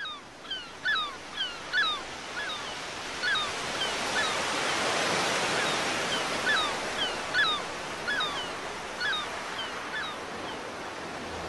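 Beach sound: ocean surf that swells in the middle, with many short gull calls, each a quick rising-then-falling cry.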